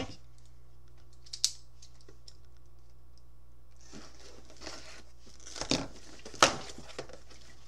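A mailed package being torn open by hand: a single sharp click about a second and a half in, then tearing and crinkling of the packaging from about halfway, with a couple of sharp rips.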